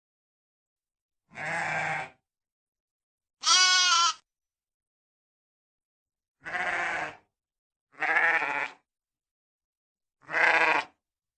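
Sheep bleating: five separate bleats, each under a second long, with silence between them.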